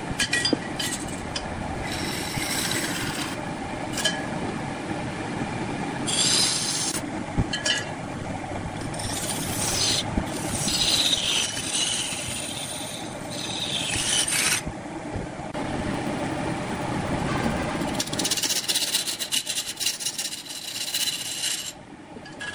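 Long-handled turning tool cutting and scraping a thick wooden spindle spinning on a large wood lathe, a continuous rasping with several louder hissing spells as shavings fly off. The cutting eases off near the end, leaving a quieter running sound.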